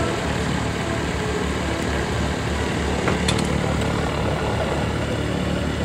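A steady engine drone with a constant low hum, like a motor idling, and a faint click about three seconds in.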